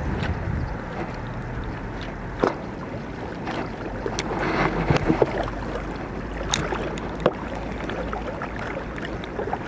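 Wind buffeting the camera's microphone: a steady low rumble and hiss, with a denser gust about halfway through. Scattered small clicks and knocks are heard over it.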